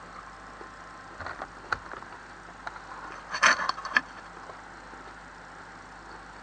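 Household refrigerator running with a steady hum. A few light clicks come about a second in, then a brief clatter of several knocks about three and a half seconds in.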